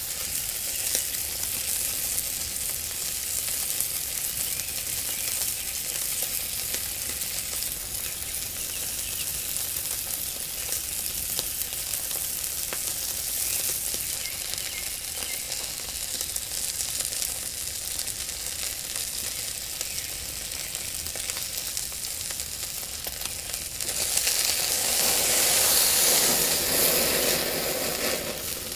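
Tomahawk steak sizzling on a cast-iron grill over hot charcoal, a steady crackling hiss. About 24 seconds in the sizzle swells louder and fuller for a few seconds as fat dripping into the coals flares up.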